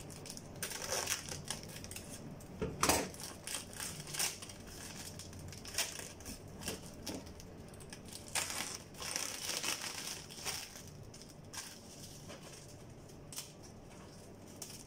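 Clear plastic packaging crinkling and rustling as it is cut open with scissors, in irregular bursts of crackle.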